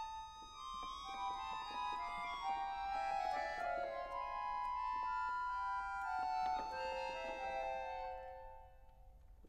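Solo piano accordion playing a contemporary classical piece: several reed notes held and overlapping, with short detached notes and sharp attacks cutting in. Near the end the texture thins to a single lower held note that fades away.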